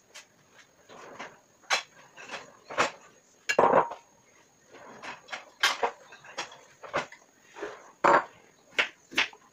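Kitchen clatter: bowls, plates and utensils knocked and set down on a countertop, a string of irregular clinks and knocks with the loudest about three and a half seconds in.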